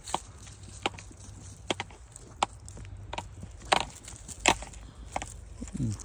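Footsteps snapping dry twigs and leaves underfoot: sharp woody cracks at a slow walking pace, about one every 0.7 seconds. Just before the end a brief low sound drops in pitch.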